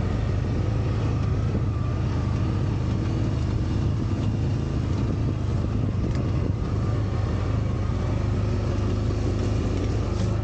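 Engine of an off-road utility vehicle running at a steady pace as it drives over rough field ground, a constant low drone with rattle and road noise.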